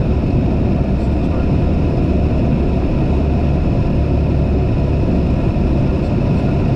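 Aircraft engine and propeller running with a steady drone, heard inside the cockpit, mixed with rumble from the wheels on the runway.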